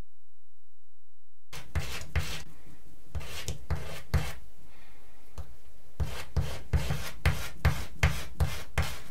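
Hand scraping strokes on wood, like a rasp or sandpaper being worked back and forth, about two to three strokes a second. The strokes start about a second and a half in, after silence, and come in two runs with a short pause between.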